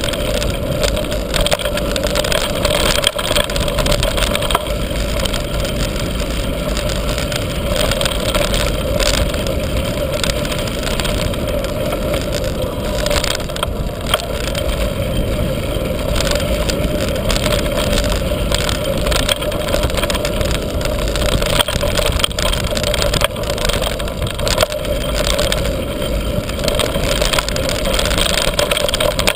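Mountain bike riding fast down a dirt trail: tyres rolling over packed dirt and gravel, the bike and camera mount rattling with many small knocks, and wind rushing over the microphone.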